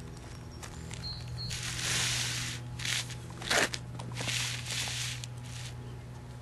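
Hitting mat being slid and turned by hand across asphalt, several short scraping swishes, with a sharper knock about three and a half seconds in.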